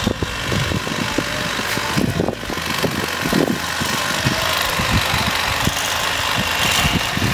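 Corded electric knife running steadily, its motor buzzing as the reciprocating blades cut a fillet from a bass.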